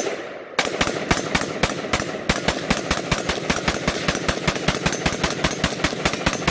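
Polish WBP Beryl-style AK-47 rifle in 7.62x39mm, fitted with a Beryl-style muzzle brake, fired semi-automatically in a fast string of shots, several a second, with a short pause near the start.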